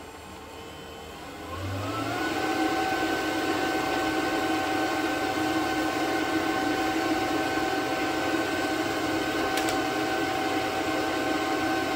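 12 V in-line bilge air blower (SEAFLO 4-inch, 270 CFM) spinning up over about a second, its whine rising in pitch as the fan is brought up to full speed. It then runs steadily with a constant whine and airy rush.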